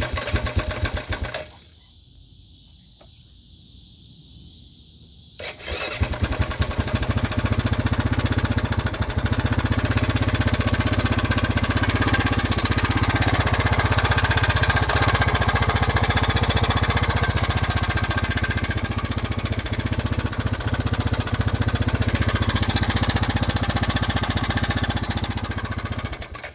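2003 Honda TRX500FA ATV's single-cylinder engine cranked briefly without catching, then cranked again about five seconds in and started on choke, running steadily until it cuts off near the end. It carries a knocking noise that the owner puts down to the camshaft decompressor.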